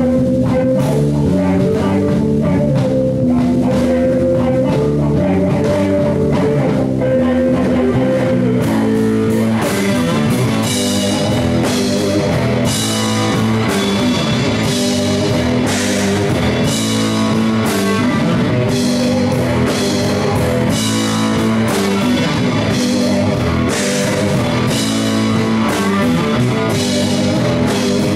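A live rock band playing electric guitars over a drum kit, with the drums and cymbals coming in harder about nine seconds in.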